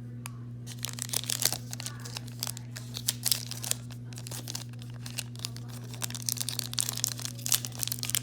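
Trading card pack wrapper being torn open and crinkled in the hands: clusters of crackling rustles over a steady low hum.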